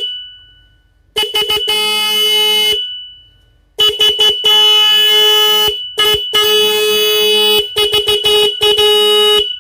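Stebel single-disc 12 V electric horn, the 430 Hz version, sounded in loud honks of one steady pitch. About a second in come a few quick taps and a held blast. After a short pause comes a longer run of quick taps mixed with held blasts of about a second each.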